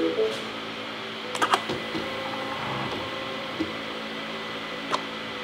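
MINI Cooper R56 fuel system priming at key-on with the engine off: the electric fuel pump runs with a steady whirring hum, pressurizing the fuel lines before the first start. There are a few sharp clicks about a second and a half in and near the end. Not a loud noise, but distinctly heard.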